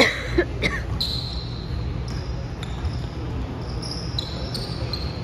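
Basketball bouncing on a hardwood gym floor during play, with a few sharp thuds in the first second and short, high sneaker squeaks scattered through the rest.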